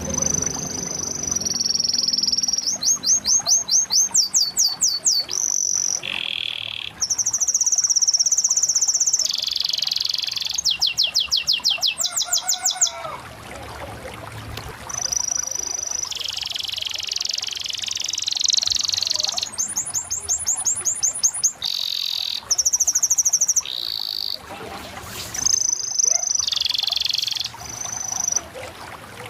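Domestic canary singing a long, varied song of high fast trills of repeated notes, held whistled tones and warbling phrases, broken by short pauses.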